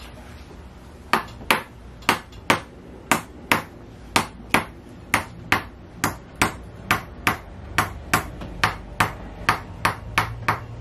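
Tok sen massage: a mallet knocking on a wedge held against the back in a steady series of sharp knocks. They start about a second in, at first in pairs, then come more evenly at about two to three a second.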